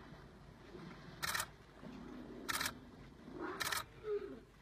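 Camera shutter clicks, three of them about a second and a quarter apart, over faint low elephant sounds.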